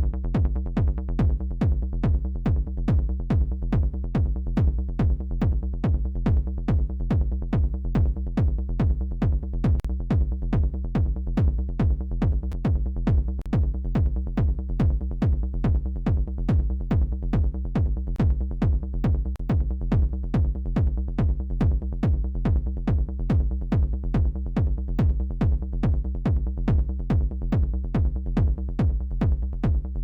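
Hardgroove techno loop playing back in Ableton Live: a fast, steady, driving beat with a heavy kick, 909-style drums and a Wavetable synth bassline.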